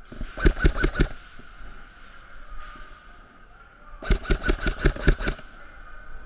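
Airsoft rifle firing two quick strings of shots, about five in a short burst and then about eight in a longer one a few seconds later, each shot a sharp crack about six or seven a second.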